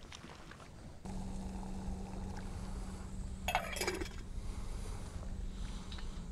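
Portable butane camping stove burning with a steady hiss and low hum under a stainless steel pot. About halfway through comes one sharp metallic clink with a short ring as the pot's lid is handled.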